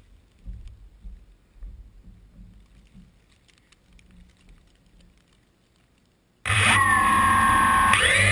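Wind buffeting the microphone, then about six seconds in the motors of a DJI Phantom quadcopter start abruptly and run with a loud whine of several tones, whose pitch dips and then climbs near the end as the throttle comes up.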